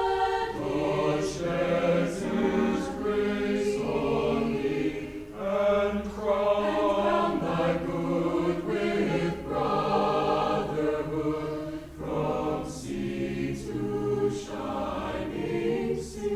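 A high school concert choir singing in several parts, holding chords that change every second or so, with crisp 's' sounds sung together by the whole choir.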